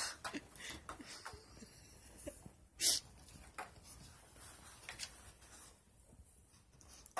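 A small dog paws and noses at a cardboard pizza box, making irregular short scratches and taps on the cardboard, with one louder cardboard noise about three seconds in.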